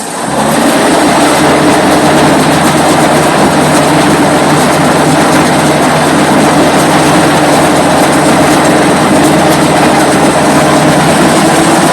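Duck boat (WWII DUKW amphibious truck) under way: its engine running loud and steady under a constant rushing noise, coming up sharply at the start and then holding level.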